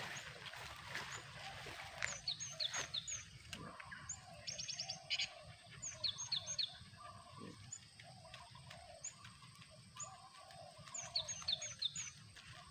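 Cinereous tits (gelatik batu) calling: many short, high, downward-sweeping chirps in small groups, with a quick rapid run of notes twice. A few light knocks of handling at the trap cage come in the first couple of seconds.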